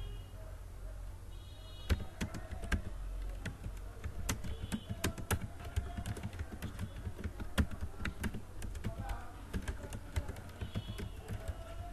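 Typing on a computer keyboard: irregular key clicks that begin about two seconds in, over a low steady hum.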